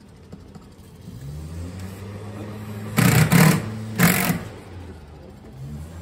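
Cordless power driver driving screws into a garage door's bottom seal strip. The motor spins up about a second in and runs steadily, with two loud bursts about three and four seconds in as the screws are run home.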